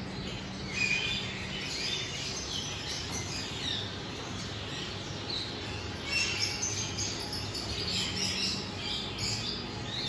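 Many small birds chirping and calling in a chorus of short, high chirps, busier about a second in and again from about six seconds on, over a low steady hum.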